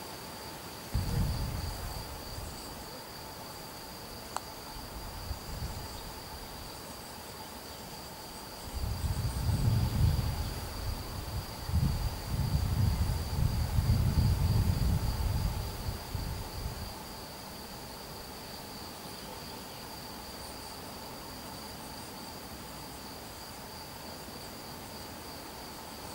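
A steady, high-pitched insect chirring runs throughout, with a fainter steady lower hum beneath it. Low rumbles come about a second in and again, louder, from about nine to seventeen seconds in.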